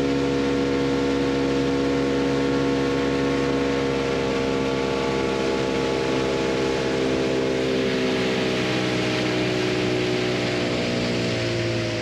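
Boat outboard motor running at a steady speed over a constant hiss, its pitch sagging slightly in the last few seconds.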